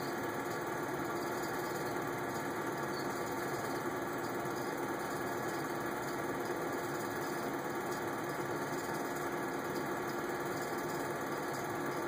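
Film projector running steadily, its motor and film mechanism making an even, unbroken mechanical noise.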